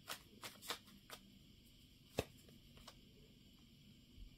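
Tarot deck being shuffled by hand: a few soft card flicks in the first second, then one sharper card snap a little after two seconds, with a couple of faint flicks after it.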